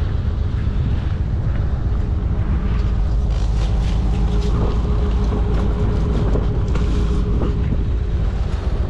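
A steady low engine rumble at idle. Over it, leaves and twigs crackle and rustle for a few seconds as a leafy branch is pulled out from between a car's muffler and rear quarter panel.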